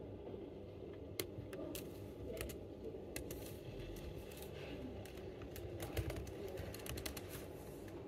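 Typing on an Apple MacBook laptop keyboard: irregular soft key clicks, with a few sharper taps, over a steady low room hum.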